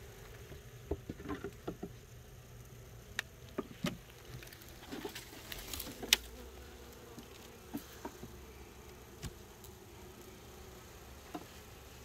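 Honeybees buzzing around an open hive, a steady hum. Scattered sharp clicks and knocks sound over it, the loudest about six seconds in.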